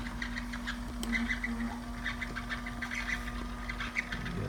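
Small electric motor of a rod-wrapping lathe turning the rod with a steady hum, over irregular clusters of high, squeaky chirps.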